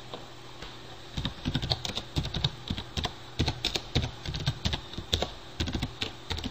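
Computer keyboard typing: a run of irregular keystrokes starting about a second in.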